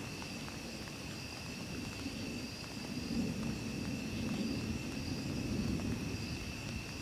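Distant thunder rumbling low, swelling and fading, after a lightning flash. Under it runs a steady high trilling of night insects.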